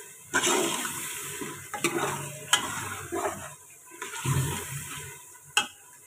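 Steel ladle stirring and scraping an onion, tomato and green chilli masala frying in oil in a steel pressure cooker, in three stirring spells with a few sharp clinks of the ladle against the pot.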